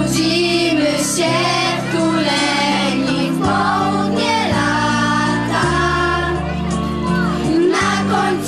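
A group of girls singing a song together into handheld microphones over an instrumental accompaniment with a steady bass line.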